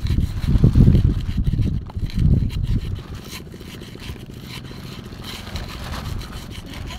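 Wooden pestle grinding and scraping chilies, shallot and garlic into sambal in a wooden mortar (cobek), in a run of quick strokes. Wind buffets the microphone with two loud low rumbles in the first three seconds.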